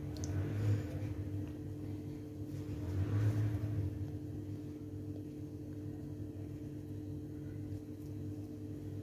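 Steady low hum in the room, with soft brushing that swells twice as a ball of dough is rolled and pressed in fine semolina on a plate.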